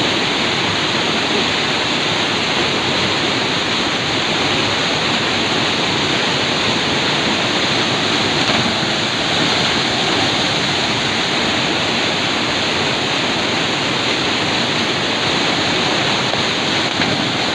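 Rushing white water of a river, a steady loud rush with no break.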